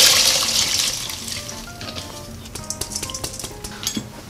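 Drained, soaked glutinous rice pouring from a metal bowl into the sugar-and-soy liquid in a rice cooker pot: a rushing hiss that fades out during the first second or so. Soft background music follows.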